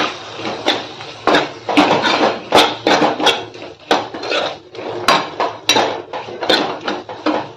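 Metal spatula stirring chopped vegetables in a kadai, knocking and scraping against the pan in irregular clacks about twice a second.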